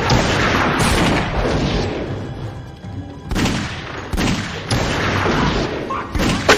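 Gunshots in a movie shootout, fired in irregular bursts, over the film's music score, with a short lull about two and a half seconds in.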